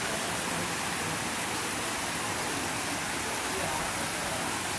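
Water pouring from spring-fed spouts and splashing into a bathing pool: a steady, even splashing.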